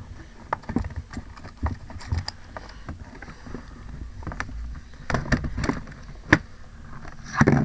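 Rummaging through craft supplies: irregular clicks, knocks and rattles of small items being picked up and moved, busiest about five seconds in and again near the end.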